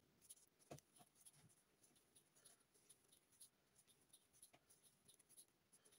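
Near silence, with faint scratching and a few light ticks from a crochet hook drawing yarn through stitches while working single crochet.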